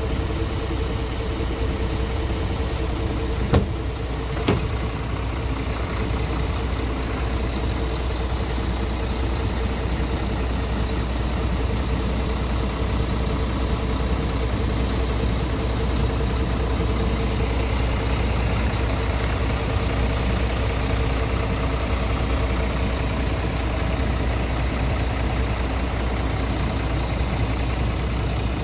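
Scania R tractor unit's engine idling steadily, with two short knocks about three and a half and four and a half seconds in.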